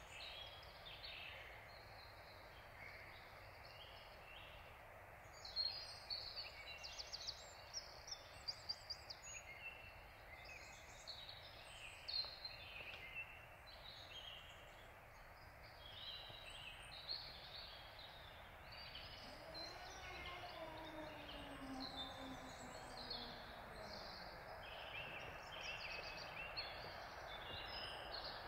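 Small songbirds chirping and singing, with short, quick calls scattered throughout over a faint steady outdoor background. About two-thirds of the way through, a faint tone falls slowly in pitch for a few seconds.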